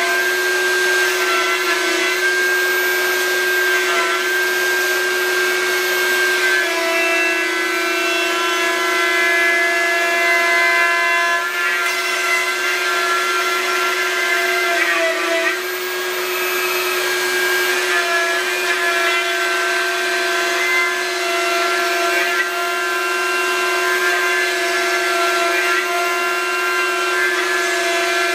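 CNC router spindle running with a steady high whine while its end mill cuts a relief into a wooden board, the cutting adding a rough rasp, with a dust-extraction vacuum running alongside.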